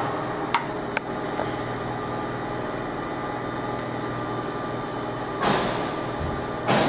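Fiber laser marking machine running with a steady mechanical hum, and a couple of faint clicks in the first second. About four seconds in, as it starts marking the plastic seals, a faint high-pitched whine joins the hum. Near the end come two short bursts of hiss.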